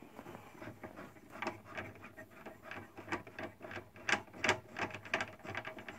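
Knurled black-oxide stainless steel thumb screws being turned by hand to tighten the truss clamps on a telescope's upper tube assembly: a run of irregular small clicks and rubbing.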